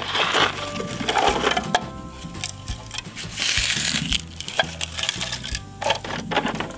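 Hard plastic toy parts clicking, knocking and scraping as the grey bin and rear lifter of a Bruder 4143 toy recycling truck are handled on rough concrete, over background music.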